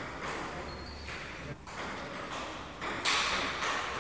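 Table tennis ball knocking back and forth off paddles and table in a rally: a series of sharp clicks at irregular spacing, the loudest about three seconds in.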